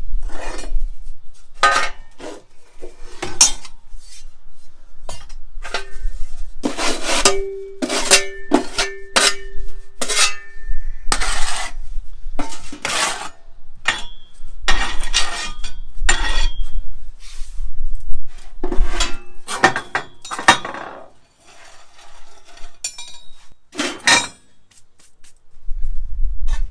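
Metal tools and pieces clanking and clattering as they are handled and set down at a steel-framed sand bin. The knocks are irregular, and a few ring on for a second or more. It goes quieter for a couple of seconds near the end.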